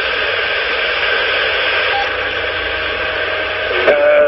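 Steady static hiss from a Superstar 3900EL CB radio receiving on 27 MHz with no one speaking. Near the end a voice comes through.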